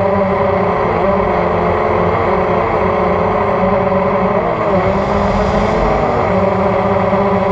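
The electric motors and propellers of a hexacopter drone whining in flight, recorded by a camera on the craft. The pitch wavers and dips with throttle changes through the middle, then holds steady near the end.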